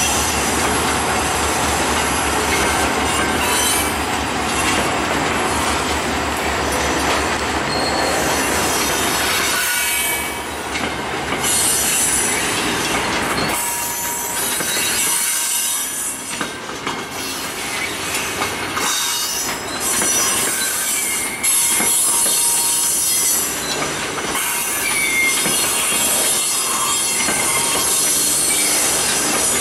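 Loaded scrap gondola cars of a heavy freight train rolling past on the rails, steel wheels squealing with steady high-pitched tones over continuous rumbling and rattling.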